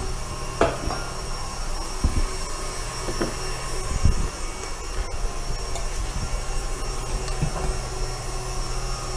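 Electric stand mixer running steadily as it whips chocolate whipped cream, with a few short knocks and clinks of utensils over it.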